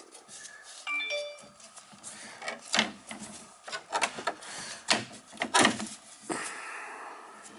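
Gloved hand handling the wooden spindles and slats of a wooden chicken crate: a string of sharp wooden clicks and knocks, after a brief squeak about a second in.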